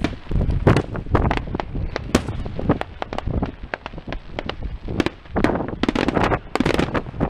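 Aerial fireworks shells bursting in quick, irregular succession, many bangs a second. A dense run of sharp cracks comes near the end.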